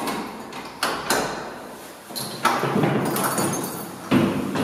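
A room door being unlocked and pushed open: four sharp clunks at irregular intervals, each with a short ring after it.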